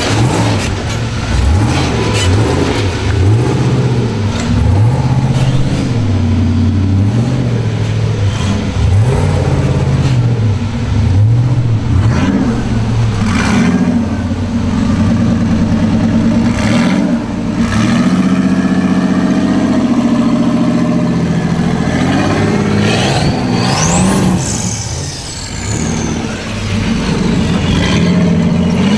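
Rock crawler buggy engines revving in repeated short bursts of throttle, the pitch swelling and dropping again and again as the buggies crawl over boulders.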